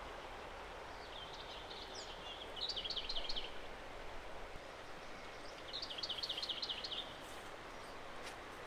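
A songbird singing two short phrases a few seconds apart, each ending in a quick run of high repeated notes, over a steady background hiss.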